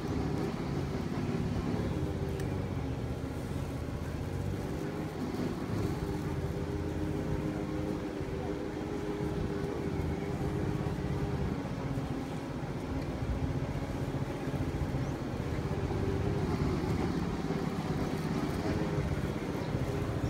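An engine running steadily, a continuous low hum with no clear change in speed.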